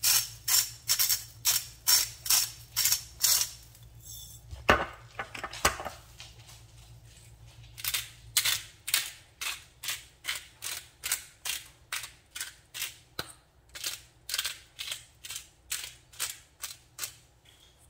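Hand-twisted spice grinders cracking peppercorns and salt crystals in rapid rhythmic grinding strokes, about two and a half a second. First the salt grinder, then a McCormick black peppercorn grinder. Between the two runs there is a pause with a couple of knocks around five seconds in, as one grinder is set down and the other picked up.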